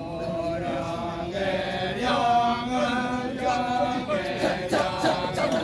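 Male voices of a Balinese kecak performance chanting in drawn-out sung notes that rise and fall in a slow melody.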